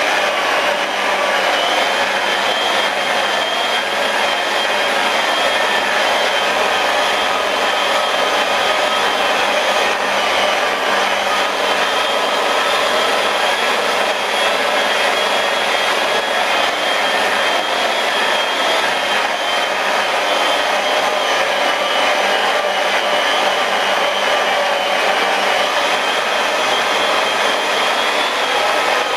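Electric rotary polisher running steadily, its foam buffing pad spinning on car paintwork to cut back a scratch with compound; a steady, unchanging motor whine.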